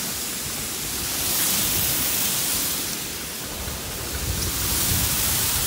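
Steady hiss of a pressurised crop-spray nozzle throwing a fine mist, with an uneven low rumble underneath that swells about four to five seconds in.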